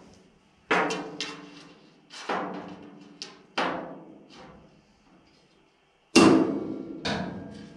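Sheet-metal strip knocking against the steel roof of a 1932 Ford coupe as it is pressed into place and clamped with locking pliers. Five sharp metallic knocks, each ringing out and dying away over a second or so, the loudest about six seconds in.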